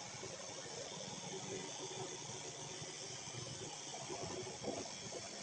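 Electric dog-grooming clippers running steadily, trimming the fur on a small dog's paw.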